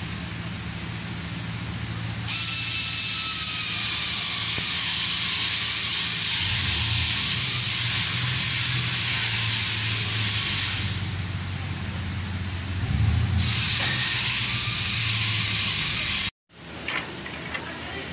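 A pressurised spray jet hissing in two long blasts, the first about eight seconds and the second about three, with a faint whistle that wavers in pitch. It cuts off abruptly near the end, followed by a few light clicks.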